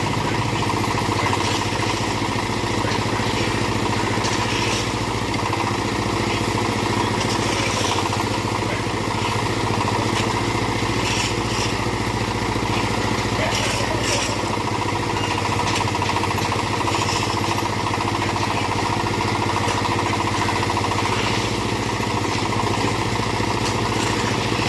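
A small backhoe's engine running steadily, with a few brief clatters through the middle.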